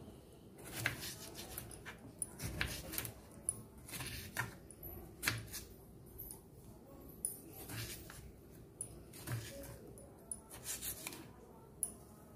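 Small kitchen knife cutting tomatoes on a wooden cutting board: irregular soft taps of the blade meeting the board, with the wet cut pieces being handled.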